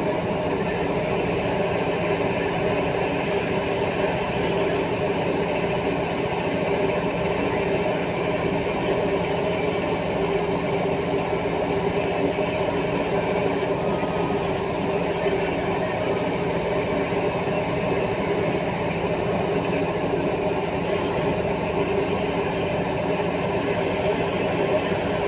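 Heavy diesel earthmoving machinery running steadily: a constant engine drone with an even pitch and no revving.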